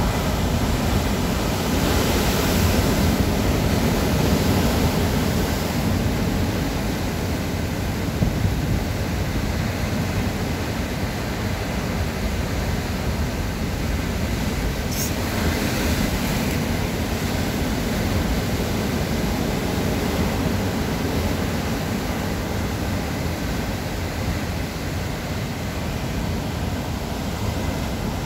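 Rough sea: waves breaking and washing over rocks along the shore, a steady rush of surf. It swells louder as waves break, once a couple of seconds in and again about halfway through.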